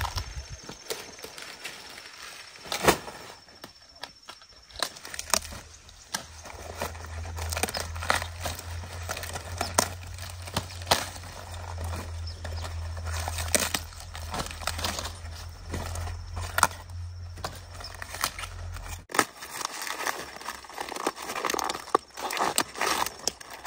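Irregular crackling and snapping of cabbage leaves and stems being cut and stripped at harvest. A low steady hum sits under it from about five seconds in and cuts off near the end.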